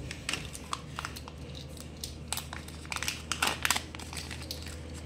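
Kinder Joy egg packaging handled and opened by hand: the peeled foil lid and the plastic toy capsule crinkle and click irregularly, busiest about three and a half seconds in.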